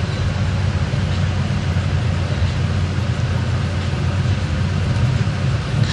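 Steady low rumble of a moving vehicle's engine and road noise, heard from inside the cabin while driving.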